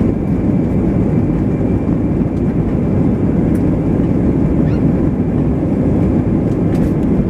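Steady rumble of an Airbus A319's CFM56 jet engines heard inside the passenger cabin, with a dense low roar that holds level throughout.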